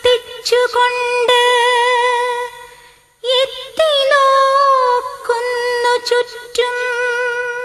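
A female voice sings long, wordless held notes with vibrato, pausing briefly about three seconds in. No accompaniment stands out beneath the voice.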